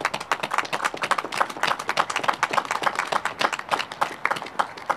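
Audience applauding, many hands clapping unevenly, thinning out near the end.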